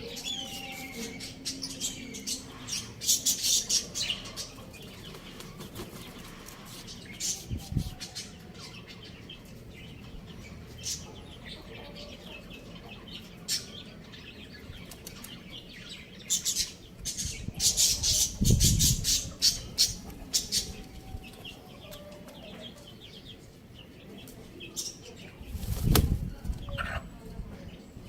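Birds flapping their wings in short flurries, with some chirping and three low thumps.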